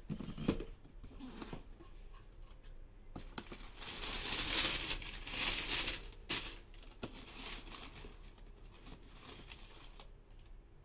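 Cardboard shoebox handled with a few knocks, then white tissue wrapping paper crinkling and rustling for about two seconds in the middle as it is folded back from the shoe. A sharp tap follows, and then softer rustling as the sneaker is lifted from the paper.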